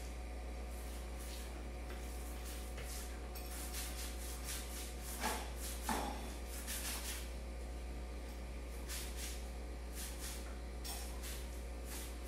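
Paint being applied to a wall in repeated rubbing strokes, about one or two swishes a second, over a steady low hum. Two louder knocks come about five and six seconds in.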